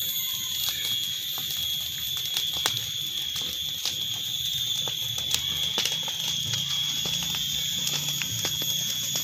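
A pile of dry leaves burning, with scattered sharp crackles, under a steady high-pitched drone.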